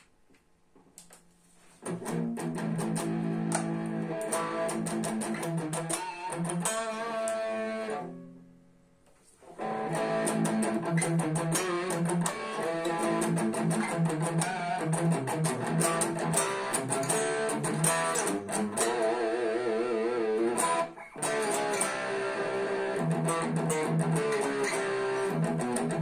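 Cort X1 electric guitar played through a Behringer GRX212 amplifier: a string of picked notes and phrases begins about two seconds in. Around eight seconds in a note dies away into a short gap, then playing resumes, with wavering vibrato notes later on.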